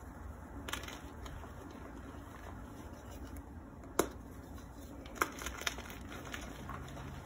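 Hands squeezing and crumbling a soft powdery block in a tray of loose powder, a soft crunching, with one sharp snap about four seconds in as the block breaks and two smaller cracks a second or so later.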